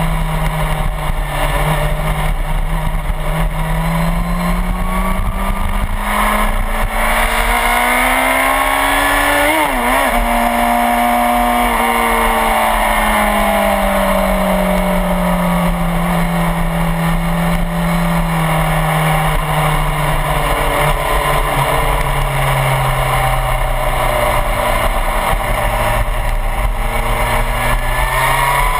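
Suzuki GSX-R1000's inline-four engine heard from a camera on the bike at speed, over steady wind rush. Its note climbs under throttle to a brief wobble and drop about ten seconds in, then sinks slowly for a long stretch and climbs again near the end.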